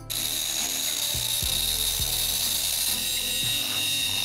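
Abrasive cut-off wheel grinding through the steel jaw of a pair of pliers. It starts abruptly just after the start and runs at a steady high-pitched whine.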